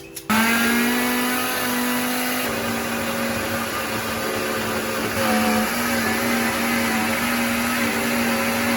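Electric blender grinding pepper: the motor starts about a quarter second in and runs steadily with a strong hum, its pitch sagging briefly now and then as the load shifts.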